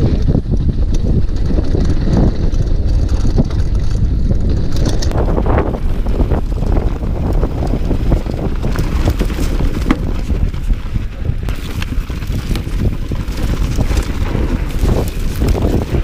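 Mountain bike descending a dirt trail: wind buffeting the camera microphone over tyres rolling on dirt, with the frame and chain knocking and rattling over bumps throughout.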